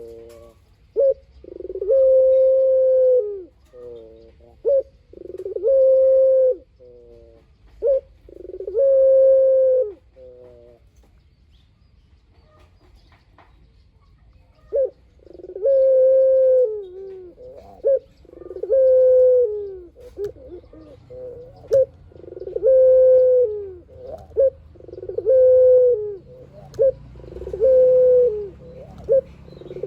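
Puter dove (domestic Barbary dove) cooing over and over. Each call is a long held note that falls away at the end, with short quick notes between the calls. The calls stop for a few seconds midway, then start again closer together.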